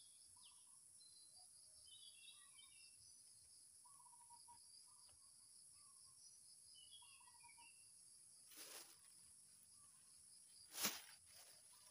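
Steady high insect drone with short, repeated bird chirps. Near the end come two brief rustles, the louder one a plastic bag being opened and handled.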